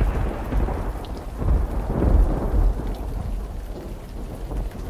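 Thunderstorm: low rolling thunder that swells about a second and a half in and fades again, over a steady hiss of rain.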